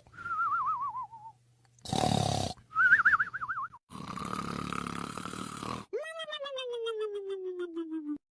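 Cartoon-style snoring: a rasping inhale followed by a warbling whistle on the exhale, twice, the first whistle falling and the second pitched higher. Then comes a longer rasping snore and a falling, rattling drone.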